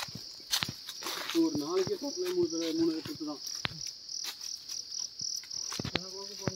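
A steady, shrill insect chorus, with quick regular chirping pulses in the middle.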